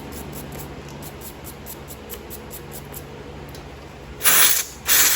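Steel wire brush scrubbing a spark plug: quick faint scratching strokes, several a second, then two louder, longer scrapes near the end.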